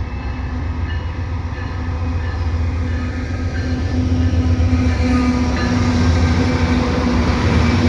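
Diesel freight locomotives running as the train approaches: a steady low engine drone and hum that grows louder about four seconds in.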